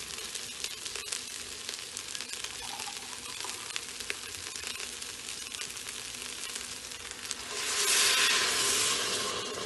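Basmati rice and vegetables sizzling and crackling in a hot Instant Pot steel inner pot on sauté. Near the end, coconut milk poured in from a glass brings a louder rush of hissing sizzle for about two seconds, then it settles.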